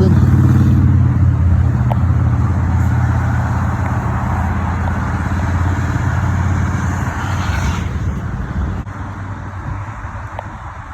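Bicycle tyres rolling across a bridge deck, making a loud, steady low hum that holds one pitch. It fades out about eight seconds in.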